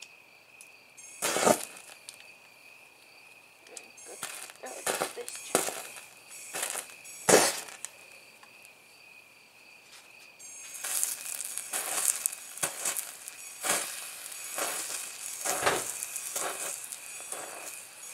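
Burning magnesium shavings in a pan crackling and popping as they are sprayed from a spray bottle. There are a few sharp pops in the first half, the loudest about seven seconds in, then dense crackling from about eleven seconds in. Crickets chirp steadily behind.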